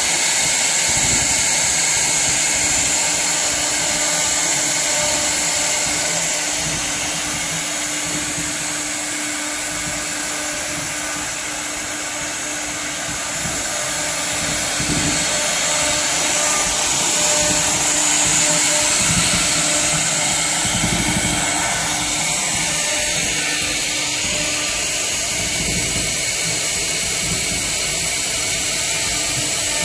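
Two HQD 6 kW air-cooled spindles on a wood CNC router running and carving into a wood board: a steady high whine with the hiss of the cutting, dipping a little in loudness partway through and rising again.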